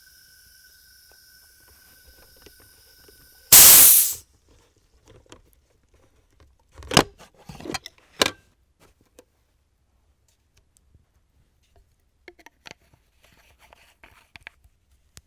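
Sodastream carbonation bottle releasing its pressure: a sudden loud hiss of gas lasting about half a second, which is the seal breaking as the bottle is twisted off the machine. Before it a faint steady hiss with a thin whine, and afterwards a few hard plastic clunks and clicks as the bottle is handled.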